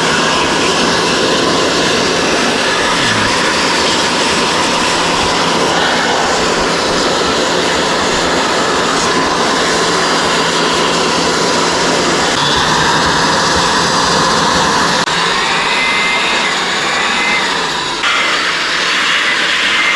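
Electric air blower running steadily, blowing dust out of a desktop PC's case. Its steady hum changes slightly about twelve seconds in.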